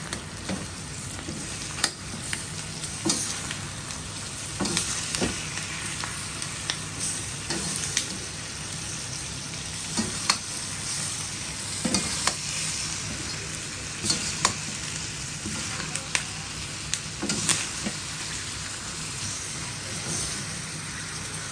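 Pork chunks sizzling steadily in their own rendered fat in a steel wok, while a metal spatula scrapes and clacks against the pan every second or two as they are stirred.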